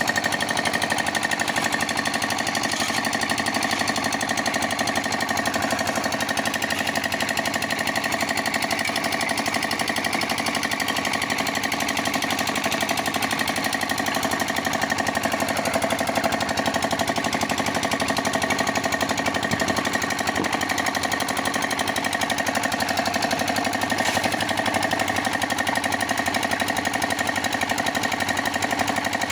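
Concrete mixer machine running steadily, making a fast, even clatter with a steady whine over it.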